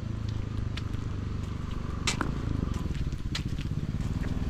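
A vehicle engine running steadily at low speed: a low, quickly pulsing rumble with a few sharp clicks over it.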